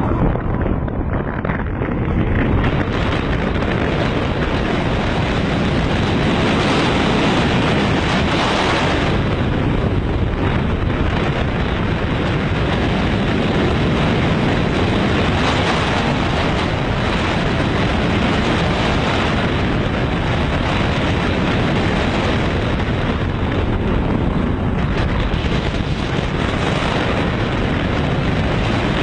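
Wind rushing over an on-ride camera's microphone together with the rumble of a steel roller coaster train running along its track at speed, a loud, steady rush.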